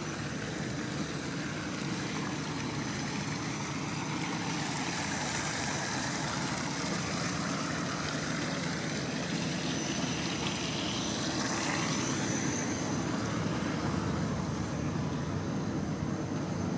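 A steady low mechanical drone under an even wash of noise, with a faint steady hum.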